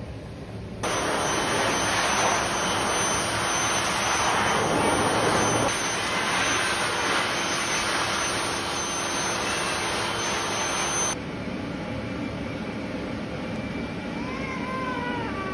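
Pet grooming blow dryer blowing air at full force, a steady loud rush that starts about a second in and drops to a softer steady blowing about eleven seconds in. Near the end a cat meows a few times.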